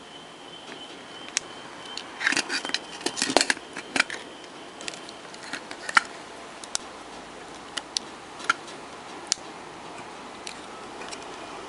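Light metallic clicks and taps from a small coil-spring battery contact and hand tools being handled, with a quick flurry of clicks about two to three and a half seconds in and single clicks scattered after it.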